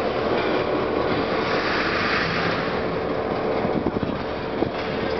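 Diesel locomotive running steadily as the railway turntable carrying it rotates, with a steady whine and a couple of sharp clicks near the end.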